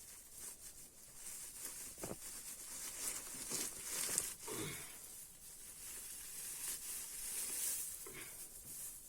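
Dry grass and reed stuffing of an old handmade pillow rustling and crackling as it is pulled and torn apart by hand, with a few soft knocks.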